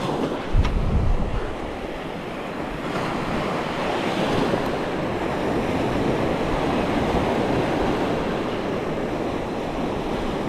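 Surf washing onto the beach in a steady rush, with wind buffeting the microphone during the first second or so.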